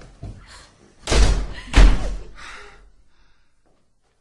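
Two loud, heavy bangs a little over half a second apart, each with a short decay, like a door being slammed or struck hard.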